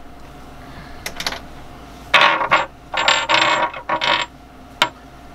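Metal hand tools and loose bolts and nuts clinking and rattling in three short bursts, with a few single sharp clicks around them.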